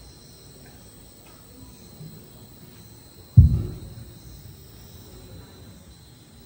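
A single low thump about three and a half seconds in, fading over half a second. Behind it is quiet room noise with a faint steady high-pitched tone.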